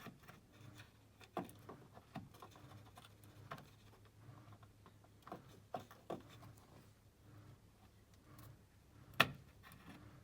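Faint, scattered clicks and knocks as a new headlight switch is worked into its mounting under a car's dash, with one sharper knock about nine seconds in.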